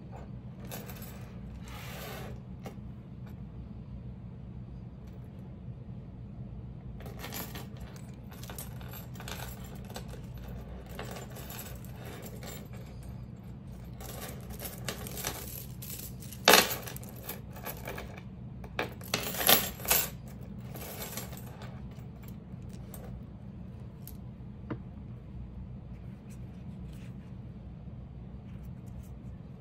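A chain strap of gold-tone metal and acrylic links clinking and rattling in bursts as the crochet bag is handled, with two sharper clinks a little past halfway. A steady low hum runs underneath.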